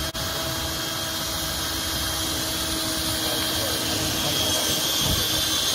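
Cordless drill running steadily under load, its 6 mm Bic Tool Gekko twist bit cutting into a stainless steel plate, with a steady motor whine over the grinding of the cut.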